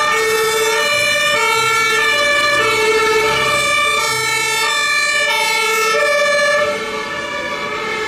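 Two-tone sirens of German emergency vehicles, a fire engine and an ambulance, switching steadily between a low and a high note, with a second siren overlapping for a while. The sirens get quieter about two-thirds of the way through as the vehicles pull away.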